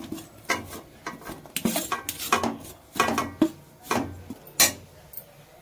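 A metal spoon scraping and knocking against a metal plate and the rim of a steel kadhai as chunks of jaggery are pushed off into the pan, in a series of separate scrapes and clinks that stop shortly before the end.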